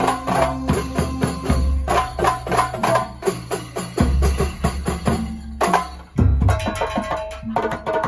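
Kuntulan music: a loud, fast percussion ensemble of drums playing a dense rhythm over a deep bass. It drops out briefly about six seconds in, then comes back in.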